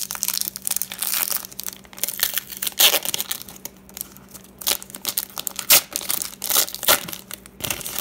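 An Upper Deck hockey card pack's wrapper being torn open and crinkled by hand, in irregular bursts of crackling with sharper crinkles about three, six and seven seconds in. A faint steady hum sits underneath.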